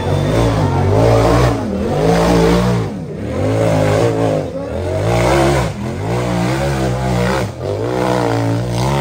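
Side-by-side UTV engine revving up and dropping back again and again, about once a second, the throttle worked in repeated surges.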